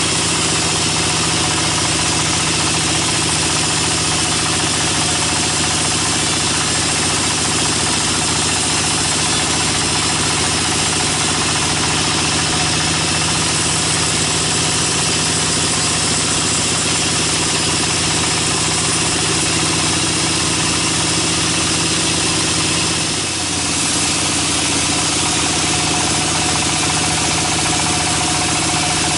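Sawmill band saw running and cutting lengthwise through a log: a loud, steady machine din with a constant hum. The sound dips briefly about three-quarters of the way through.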